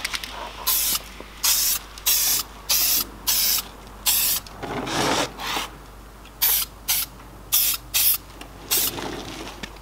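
Aerosol spray can of etch primer hissing in about a dozen short bursts as a coat of primer goes onto a brake caliper.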